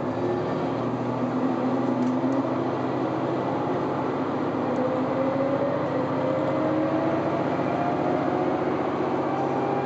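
KiHa 127 diesel railcar's Komatsu diesel engine and transmission pulling away from a station, heard inside the passenger cabin. The engine note rises steadily in pitch as the railcar gathers speed.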